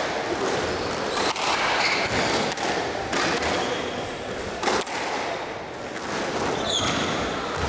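Squash rally: the ball cracking off rackets and the court walls in sharp knocks every half second to a second, the loudest a little past the middle, with a brief shoe squeak on the court floor near the end.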